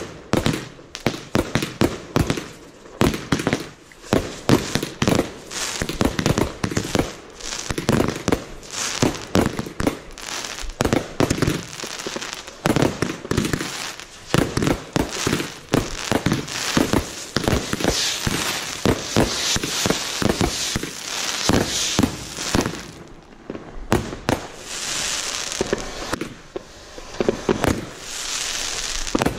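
Fireworks rockets launching with a hiss and bursting overhead in a rapid run of sharp bangs and crackles, with a short lull about three quarters of the way through.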